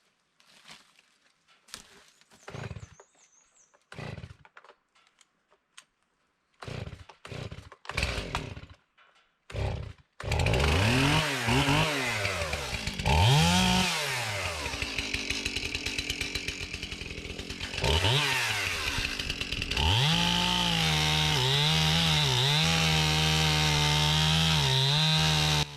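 Stihl MS 271 two-stroke chainsaw: a few short, separate sounds, then about ten seconds in the engine starts and runs loudly, its pitch rising and falling as it is revved, and holding steady and high for the last several seconds.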